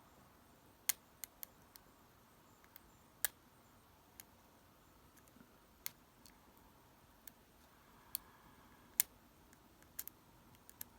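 Lock pick clicking against the pins inside a lock: short, sharp metal clicks at irregular intervals, some louder than others.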